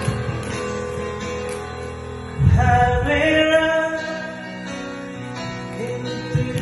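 Karaoke: a man singing into a handheld microphone over a recorded backing track with guitar. His amplified voice comes in about two and a half seconds in, louder than the music.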